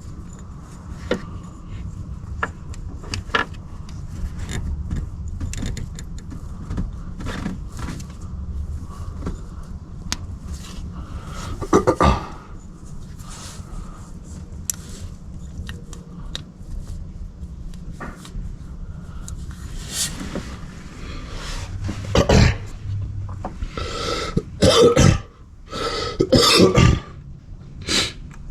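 Scattered clicks, knocks and scrapes of hand tools and metal engine parts being worked, with a few louder harsh bursts about halfway through and several more near the end.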